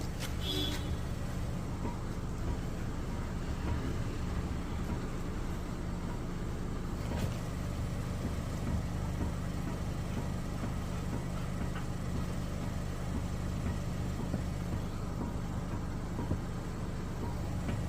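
Mahindra XUV700 running with a steady low engine hum, with a few faint clicks.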